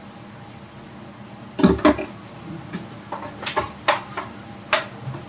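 Kitchen utensils and containers clattering as they are handled. Two loud knocks come close together about one and a half seconds in, followed by a string of lighter clinks and clacks.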